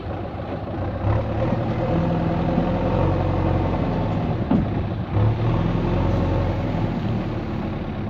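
JCB 3DX backhoe loader's diesel engine running under load as the backhoe arm and bucket are worked, revving up about a second in and again near five seconds.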